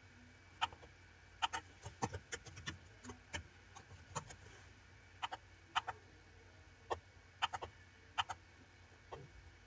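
Computer mouse button clicks: about a dozen short, sharp clicks at irregular intervals, some in quick pairs, over a faint steady hum.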